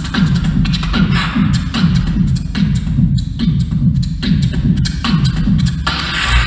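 Beatboxer performing into a handheld microphone: a repeating bass line of short notes that slide down in pitch, about two a second, with snare-like clicks and hissing hi-hat sounds between them.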